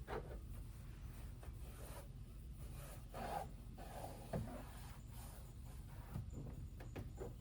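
Faint rubbing and scuffing with a few light clicks: hands wiping and handling things at the window glass.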